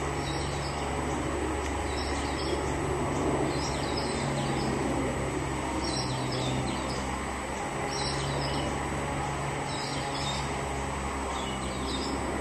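A small bird chirping repeatedly, short high calls every second or two, over a steady outdoor background of hiss and low hum.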